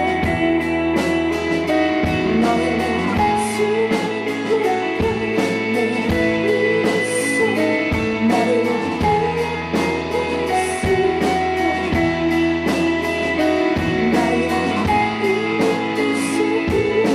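Rock band playing an instrumental passage with no vocals: guitar over bass and steady drums, with a cymbal splash every few seconds.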